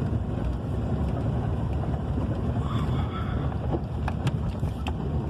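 Steady low rumble of a vehicle running, heard from inside the cab, with a few faint clicks about four seconds in.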